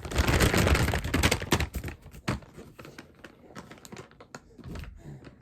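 Crinkly rustling and clicking of a disposable diaper being handled during a diaper change, loudest for the first two seconds, then scattered softer rustles and clicks.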